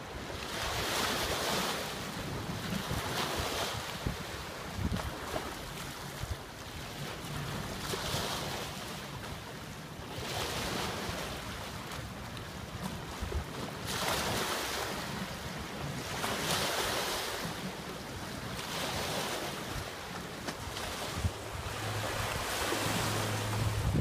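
Small bay waves washing against a rocky riprap shoreline, swelling and falling back every few seconds, with wind buffeting the microphone. A low steady hum joins near the end.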